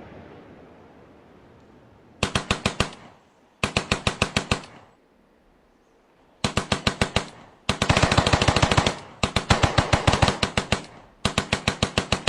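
AK-47 automatic fire in six rapid bursts of roughly ten shots a second, each burst half a second to two seconds long. Before the first burst, the rumble of an explosion dies away.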